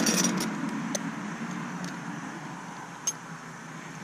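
Light metal clinks of sockets and tools being sorted through in a small socket set, a few sharp clicks about a second apart.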